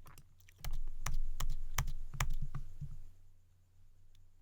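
Computer keyboard keys tapped in a quick irregular run for about two seconds, then a few lighter taps, over a low steady electrical hum.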